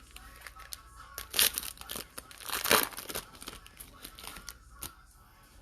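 Trading card pack wrapper torn open and crinkled, a run of crackles with the loudest rips about a second and a half in and near three seconds in. Background music plays underneath.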